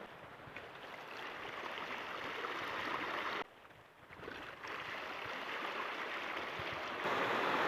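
Ocean surf washing over shoreline rocks, a steady rushing noise that slowly builds. It drops away sharply for about a second a little past three seconds, then returns and grows louder near the end.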